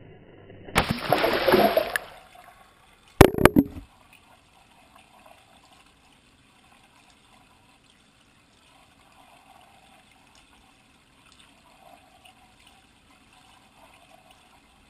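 A camera splashing into a swimming pool: a loud splash about a second in, a sharp impact about three seconds in, then faint, muffled underwater sound.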